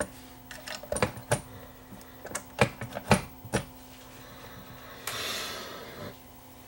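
Clicks and knocks of a Technics SL1400MK2 tone arm assembly being handled and seated onto the turntable's chassis, about six sharp ones in the first four seconds. About five seconds in comes a scraping rustle lasting about a second.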